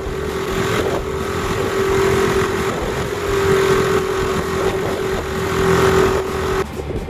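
Small outboard motor on a kayak running steadily at one constant pitch, cutting off suddenly about six and a half seconds in.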